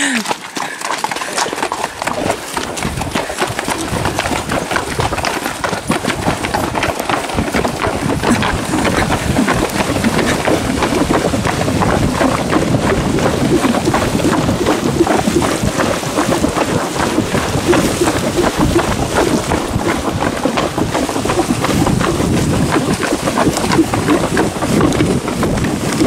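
Tennessee Walking Horses' hooves splashing quickly through a shallow, stony mountain stream, a dense run of splashes and hoof strikes that builds up over the first couple of seconds and then keeps going.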